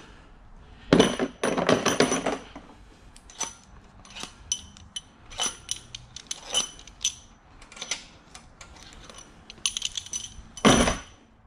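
Steel cylinder head stretch bolts clinking and rattling as the loosened bolts are pulled out and set down: irregular sharp metallic clinks with a ring to them, a quick run of them about a second in and a louder clatter near the end.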